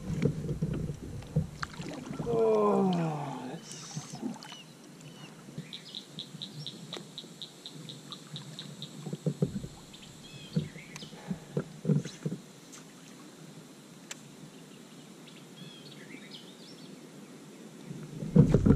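Birds calling over quiet water, among them a rapid high trill of about five notes a second that lasts a few seconds, with a few scattered low knocks. About two seconds in, a short sound falls in pitch, and a louder rush of noise begins near the end.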